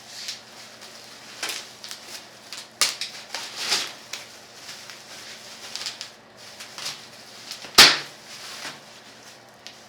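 Irregular rustling and scraping from packaging being peeled and pulled off, with scattered light knocks. The loudest is one sharp knock or snap about eight seconds in.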